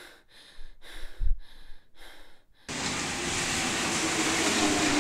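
A series of short hiss-like bursts, then, just past halfway, a sudden start of the steady noise of a Paris Métro train running, with a low whine from its motors.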